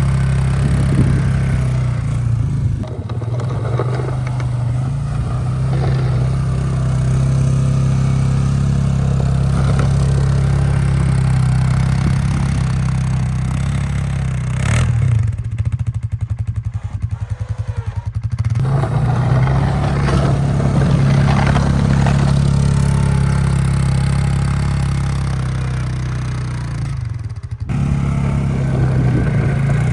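Polaris 450 ATV engine running steadily under load while pushing snow with a plow. About halfway through it drops briefly to a lower, pulsing idle, then picks up again.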